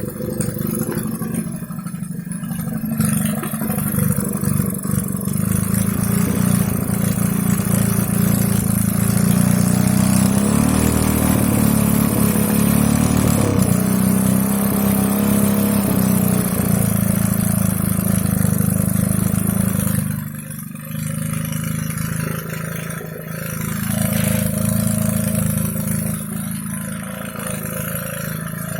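Homemade four-stroke engine built from a refrigerator compressor running, its speed rising and falling, with two brief dips about two-thirds of the way in.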